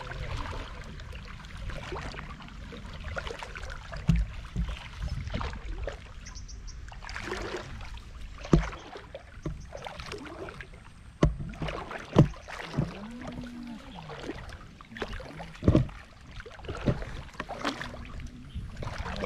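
Water sloshing and swishing around legs as people wade through a shallow river, with a few sudden sharp sounds scattered through it, the loudest about twelve seconds in.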